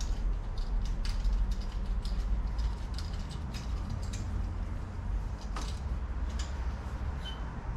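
Scattered metallic clicks and creaks from hand work on a bicycle's drivetrain, over a steady low hum.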